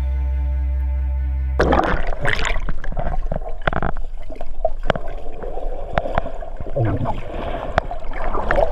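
A held music chord cuts off about one and a half seconds in, giving way to the muffled sound of water heard through a camera held under the lake surface: bubbling and gurgling, with frequent sharp clicks and knocks.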